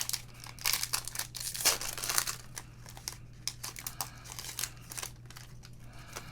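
Crinkling and tearing of a trading-card pack's wrapper being torn open by hand, densest and loudest in the first couple of seconds, then thinning to lighter rustling and occasional crackles.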